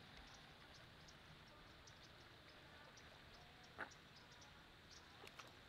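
Near silence: faint outdoor ambience with scattered faint high ticks, and one brief sharp sound a little before four seconds in.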